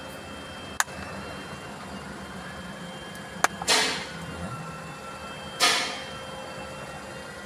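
Hand tools working at the plastic housing of a car's PCB fuse and relay block to open it: two sharp clicks and a few short scraping rasps, over a steady low hum.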